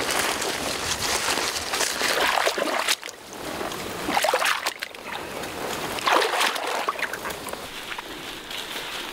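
Footsteps splashing and sloshing through shallow floodwater as two people wade along, in irregular strides.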